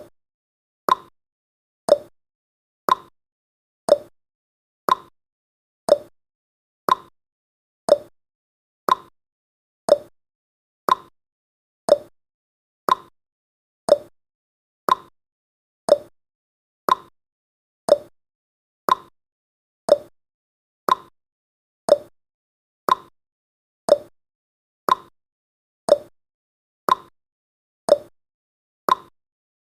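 Countdown timer tick sound effect: one short, sharp tick every second, evenly spaced, marking each second as the countdown runs.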